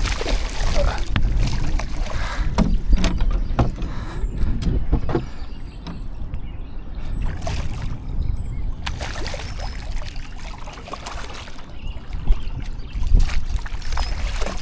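Low rumble and scattered knocks and clatter of handling aboard a small fishing boat while a hooked channel catfish is fought to the surface and landed.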